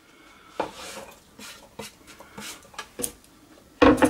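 Kitchen handling sounds as diced zucchini goes into a slow cooker's crock: soft scraping and a few light clicks, then a louder knock near the end.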